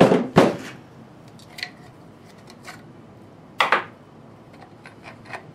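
Metal clicks and knocks from handling an aluminium pipe clamp (the cold ring) on a black HDPE pipe fitting as it is taken off after a fusion weld: two sharp knocks at the start, light clicks, and a louder clank a little after halfway.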